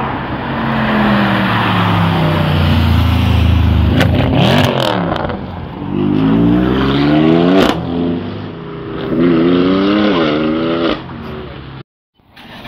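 Loud car engine accelerating hard, its revs climbing in several rising runs, the strongest in the second half. A sharp crack comes partway through.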